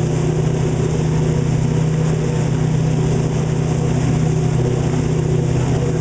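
Motorboat engine running at a steady speed, a constant low hum with no change in pitch.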